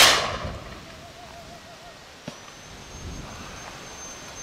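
A shotgun shot at the very start, its report dying away over about a second. A small click follows about two seconds in, with a faint thin high steady tone after it.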